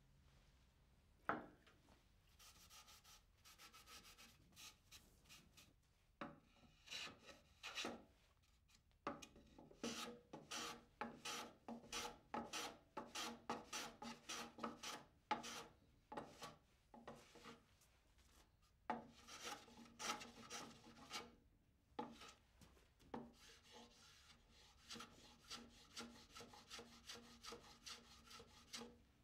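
A hand tool rubbing back and forth along the edge of a red oak crate top, shaping the wood. It goes in runs of quick strokes, about two a second, with pauses between the runs, after a single sharp knock about a second in.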